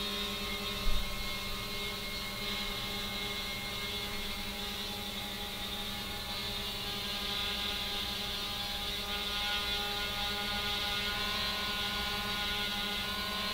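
Steady electric hum of the 3DR Iris+ quadcopter's motors and propellers in flight, several tones held at once, with the upper tones edging up slightly near the end. A short low thump about a second in.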